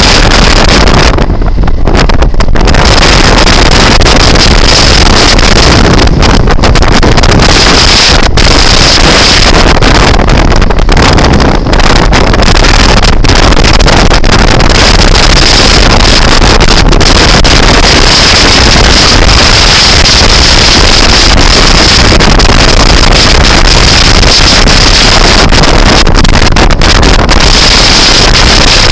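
Loud wind noise buffeting the microphone of a moving scooter, a dense, steady rush that drowns out everything else.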